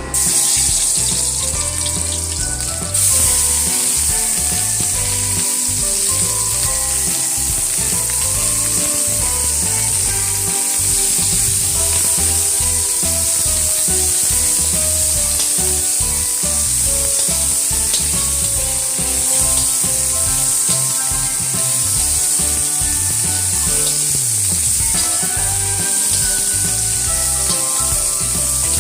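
Ingredients sizzling in hot oil as they are sautéed in a pan. The sizzle steps up sharply about three seconds in and then holds steady.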